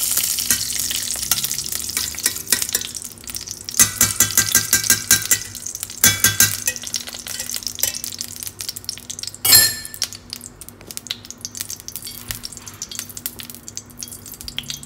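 Lumps of ghee melting in hot ghee in a stainless steel frying pan, sizzling and crackling with scattered pops. One louder spatter comes about two-thirds of the way through.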